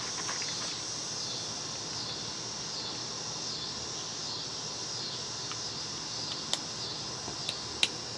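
Steady high-pitched chirring of insects outdoors, with a few sharp clicks near the end as a plastic fertilizer bottle is handled, the loudest just before the end.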